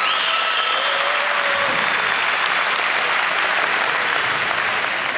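Audience applauding steadily, with a few brief shouts near the start.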